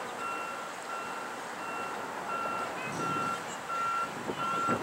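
A vehicle's backup alarm beeping at an even pace, about three beeps every two seconds. Traffic noise rises and falls partway through.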